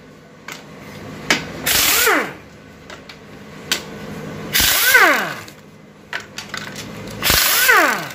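Hand-held electric driver with a socket undoing the oil pump bolts of an automatic transmission. It runs in three short bursts, and its motor winds down with a falling whine after each one, with small clicks of the socket on the bolts in between.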